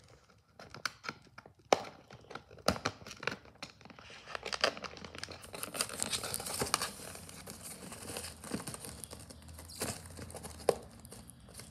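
Fingers picking at and tearing open a cardboard collectible-figure box: scattered sharp clicks at first, then from about halfway through a steadier crinkling and tearing of the packaging, with one sharp click near the end.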